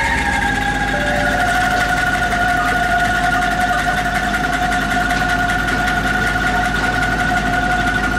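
Bamboo angklung ensemble shaken in a fast rattling tremolo, holding a long chord: the pitches shift about a second in and then sustain steadily.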